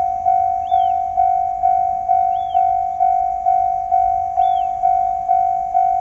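Japanese railway level-crossing warning bell ringing: a single electronic ding repeated a little over twice a second, each strike fading before the next. It signals that a train is approaching the crossing. A faint chirp sounds about every two seconds in the background.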